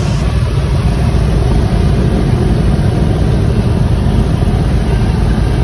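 Cabin noise of a 1946 Cessna 140 in flight: its four-cylinder engine and propeller run at a steady drone with wind rush, picked up by a camera microphone in the cockpit rather than through a headset feed.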